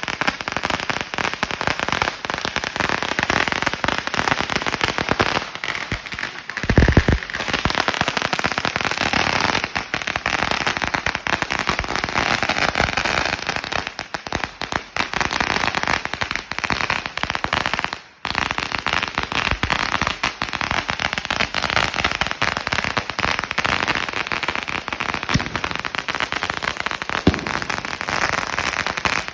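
A long firecracker roll going off: a dense, continuous rattle of small firecrackers popping in rapid succession. One louder bang comes about seven seconds in, and the popping breaks off for a moment about eighteen seconds in.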